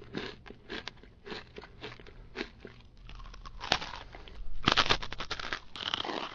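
Irregular crunching and crackling: a run of short, crisp bursts that grows louder and denser about four and a half seconds in.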